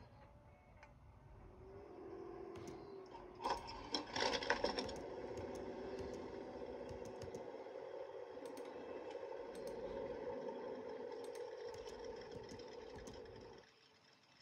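Car engines from an animated film soundtrack: a burst of clattering revs, then a steady engine hum as the cars drive off, cutting off near the end.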